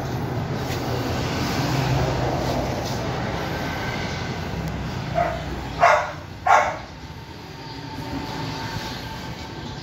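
A steady low rumble, with three short dog barks in quick succession about halfway through.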